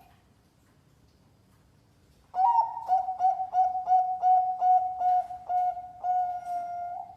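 Zebra dove (Bangkok-bred perkutut) singing, starting about two seconds in: a quick run of about ten short cooing notes, roughly three a second, ending in one long held coo.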